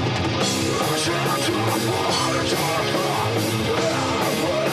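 Heavy metal band playing live: distorted electric guitars and bass over a drum kit with regular cymbal strokes.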